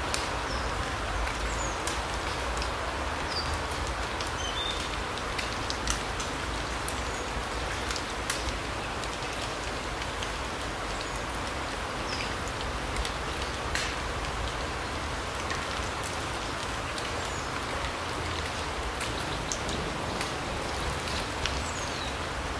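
Larch forest ambience: a steady hiss with scattered sharp, drip-like ticks throughout, and brief high bird chirps now and then.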